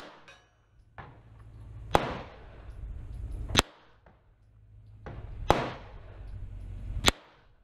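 A 9mm pistol fired in slow, deliberate single shots: five sharp cracks about one and a half to two seconds apart, each with a short ringing tail. Background noise swells back up between the shots.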